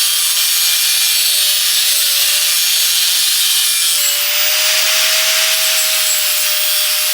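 Angle grinder notching the end of a steel trampoline-frame tube: a loud, steady grinding hiss, with a whining tone joining about four seconds in.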